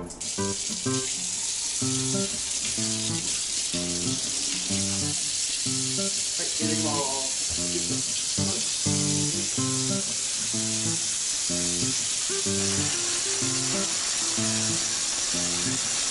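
Warm water running into a dog-washing bathtub as it fills, a steady hiss that builds over the first few seconds. Background music with a repeating pattern of plucked notes plays throughout.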